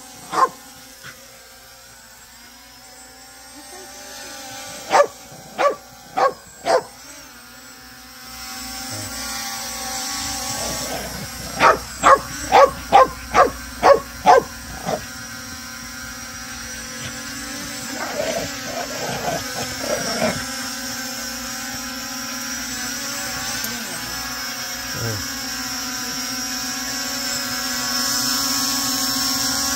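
A dog barking at a small quadcopter drone: four sharp barks about five seconds in, a quick run of about seven barks around twelve seconds, then softer barks, over the steady high whine of the drone's propellers, which slowly grows louder toward the end.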